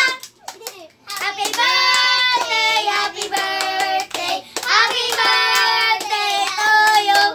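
A group of children singing together and clapping along. The singing breaks off briefly right at the start and picks up again about a second in.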